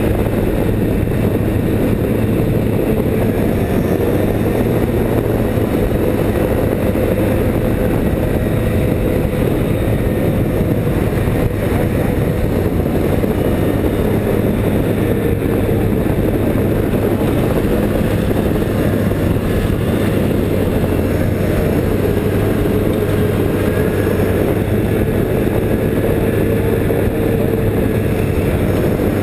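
Snowmobile engine running steadily at speed, heard from on board the sled, its pitch wavering only slightly over a steady rushing hiss.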